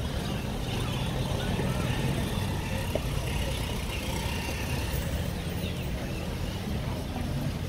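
Town street ambience: a steady low rumble of road traffic, with faint voices of people nearby.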